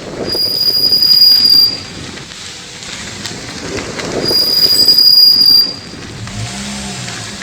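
Car brakes squealing twice. Each is a steady high-pitched squeal about a second and a half long, over the rumble of the rolling car.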